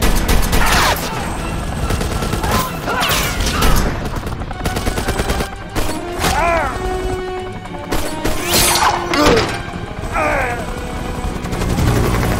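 Film gunfight sound mix: repeated pistol shots and bursts of gunfire over an action music score.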